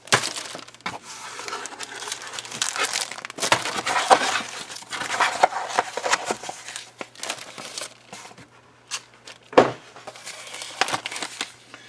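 Clear plastic bags holding styrene model-kit sprues crinkling and rustling in irregular bursts as the bagged parts are handled, with one sharp knock about nine and a half seconds in.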